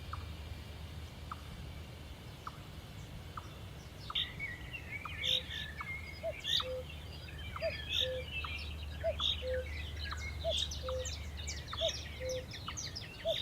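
Birds chirping and calling over a steady low hum. The chirping starts about four seconds in, along with a short low note that repeats at an even pace.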